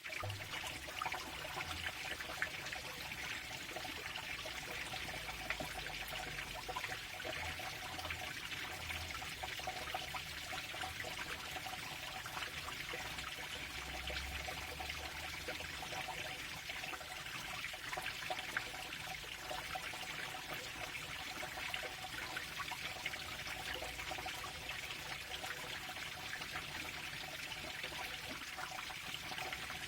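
Water flowing and trickling steadily, a continuous splashing babble with many small drips and splashes.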